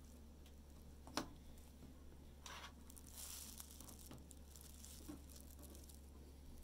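Faint clicks and rubbing of plastic LEGO bricks being handled and pressed together, with the sharpest click about a second in. A steady low hum lies under it.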